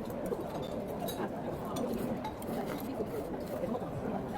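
Eating sounds with light clinks of utensils against dishes.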